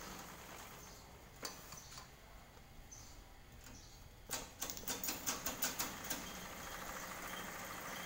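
A single sharp click, then about two seconds later a quick run of sharp clicks or taps, roughly four a second, over faint steady background noise.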